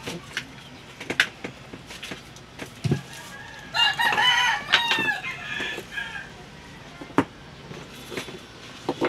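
A rooster crows once, a loud call lasting about a second and a half about four seconds in, with a few scattered light knocks before and after.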